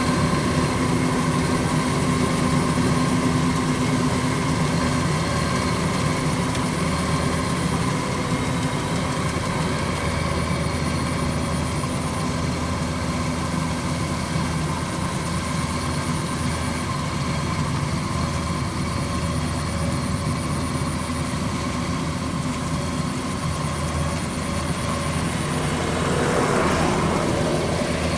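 Kubota DC93 combine harvester running steadily, its diesel engine and harvesting machinery making a continuous heavy drone. Near the end there is a brief swell of rushing noise.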